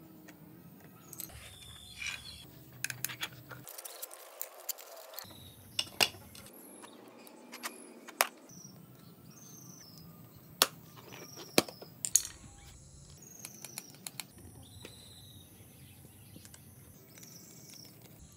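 Screwdriver clicking and scraping against the metal rim and spokes of a small bicycle wheel as the tyre bead is levered onto the rim: irregular sharp clicks, several loud ones near the middle.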